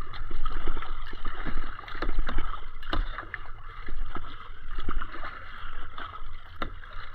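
Water sloshing and gurgling around a moving kayak, over a steady low rumble, with many small scattered knocks and splashes.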